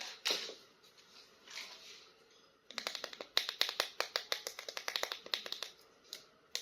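Plastic toy packaging being handled: brief rustling, then from about three seconds in a quick run of sharp plastic clicks, roughly ten a second, that stops shortly before the end.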